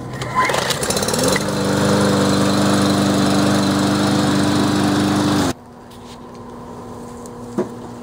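Briggs & Stratton 550EX 140cc single-cylinder lawn mower engine pull-started after a carburetor cleaning. It catches at once, revs up over about a second, runs steadily for about four seconds, then cuts off suddenly.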